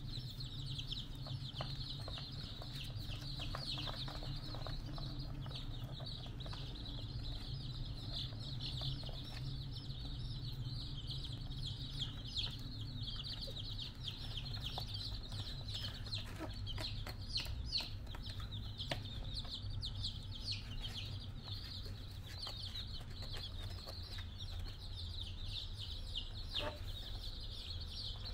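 A brood of baby chicks peeping without pause, many high-pitched cheeps overlapping one another, over a steady low hum.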